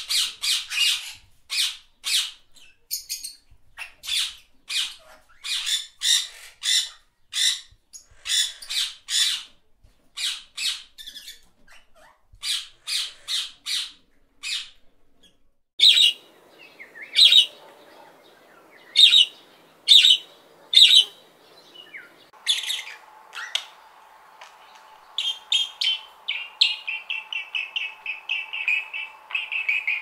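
Budgerigars calling: a quick run of sharp chirps, several a second, for about the first half. Then, in a different stretch with a faint steady hum behind it, spaced calls give way near the end to a rapid, continuous warbling chatter.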